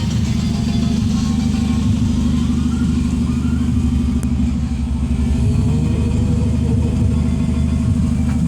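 Hyundai Verna's exhaust running loud and steady with a low drone, through a gutted catalytic converter and a muffler delete with a tip bolted on axle-back.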